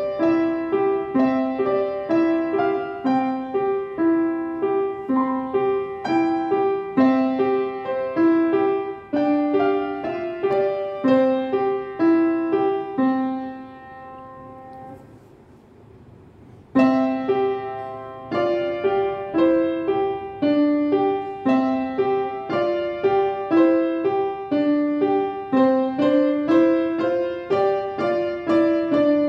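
A young child playing simple tunes on a piano, one note at a time at a steady, even pace. About halfway through a held note dies away, and after a short pause the playing starts again.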